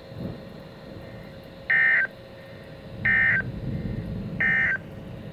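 Three short, buzzy bursts of EAS SAME digital data tones, evenly spaced about a second and a half apart, over weather-radio background hiss: the end-of-message (EOM) code that closes a NOAA Weather Radio alert.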